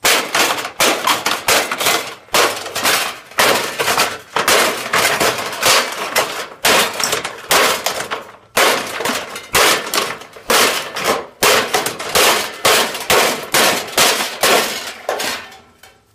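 Fixed-blade combat knife hacking repeatedly into thin sheet-metal roofing, a steady string of sharp, ringing metal clangs about two a second, with a short break about eight seconds in.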